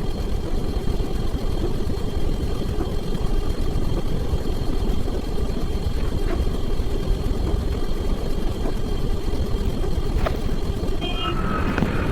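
A steady low rumbling noise, even in level throughout, with a short chime-like tone about eleven seconds in.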